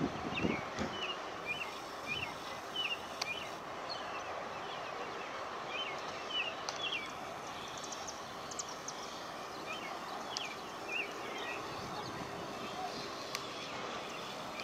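Small birds chirping repeatedly, short high chirps coming in loose runs, over a steady outdoor hiss. A few low bumps sound near the start.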